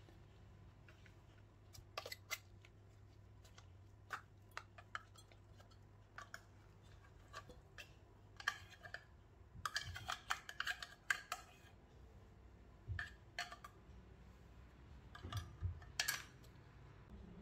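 Scattered clicks and scrapes of an opened tuna tin being handled and emptied into a stainless steel mixing bowl, with a dense bout of scraping about ten seconds in and a few duller knocks near the end.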